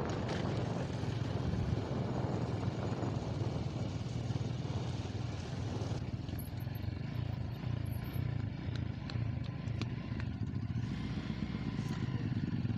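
Motorcycle engine running steadily while riding along a dirt road, heard from on the bike. A rushing noise eases about halfway through, and a few light clicks follow.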